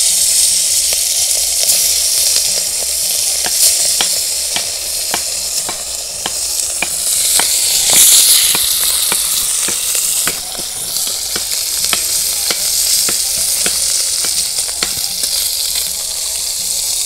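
Whole puti fish (pool barb) frying in hot oil in a wok: a loud sizzle that starts suddenly as the fish go in, with many sharp crackling pops of spattering oil. It is loudest about halfway through.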